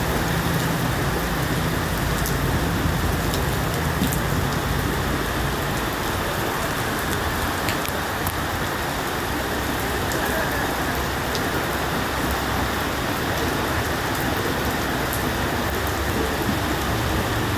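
Heavy rain pouring steadily, with rainwater streaming off a roof. A low rumble fades out in the first few seconds.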